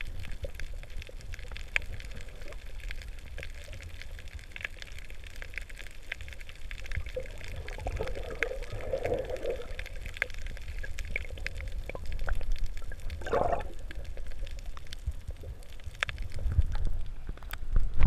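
Muffled underwater water noise heard through an action camera's housing: a steady low rumble with scattered small clicks and a couple of short bubbling gurgles, growing louder and splashier near the end as the camera comes up to the surface.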